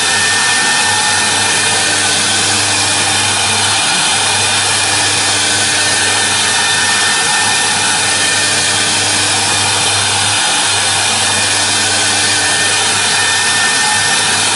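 CNC router spindle running and engraving a workpiece turned on a rotary axis: a steady whine over continuous cutting noise, with a low hum underneath that briefly drops out twice.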